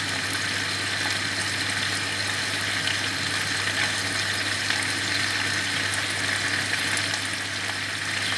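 Shredded cabbage sizzling steadily in a hot frying pan.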